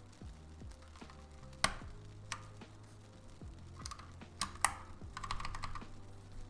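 Mechanical keyboard clacking: a few separate sharp key clicks, then a quick run of clicks about five seconds in. Background music with a steady low beat plays underneath.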